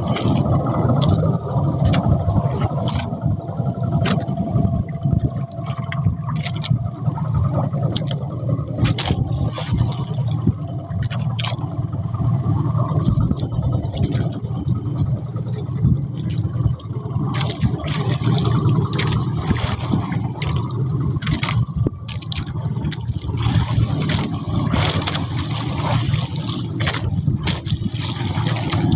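Steady low rumble and rushing noise aboard a small fishing boat at sea, with frequent short knocks and clicks throughout.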